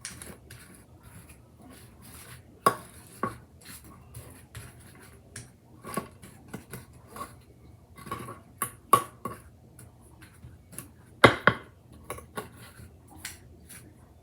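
A kitchen utensil scraping and tapping against baking pans while spreading an oatmeal-bake mixture in them: irregular light clicks and scrapes, with louder knocks a few seconds in and again toward the end.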